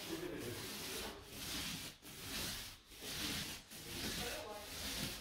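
Paint roller with an 11 mm microfibre nap rolling wet paint onto a wall: a steady rasping swish in back-and-forth strokes, with a short break at each change of direction, a little more than one stroke a second.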